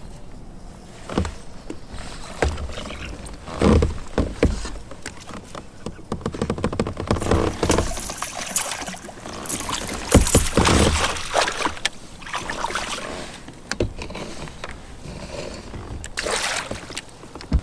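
Irregular knocks, bumps and clatter on a fishing kayak as things are handled on board, with rustling water-like noise between the loudest thumps.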